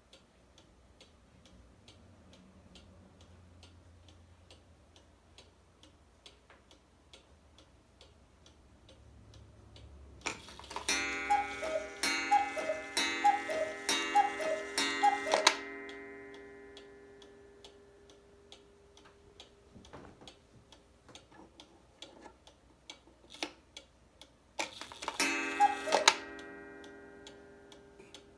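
Black Forest 8-day cuckoo clock ticking steadily, then calling five times: each two-note cuckoo call comes with a strike on its gong and the whirr of the works, and the gong's ringing dies away after the last. Some ten seconds later it gives a single cuckoo call with one gong strike.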